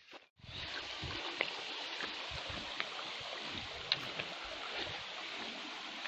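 Stream water running over rock: a steady rushing that starts abruptly just after the beginning, with a few light clicks over it.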